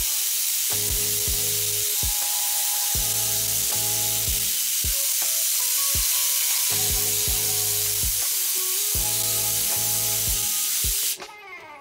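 Steady, loud hiss of a vacuum brake bleeder sucking brake fluid out of the system, cutting off abruptly near the end, with background music underneath.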